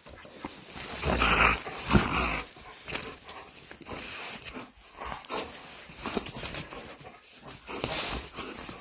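A dog making noises as it plays tug-of-war with a cloth rag, with scuffling and irregular knocks from the handheld phone being jostled. The loudest stretch comes about a second to two and a half seconds in.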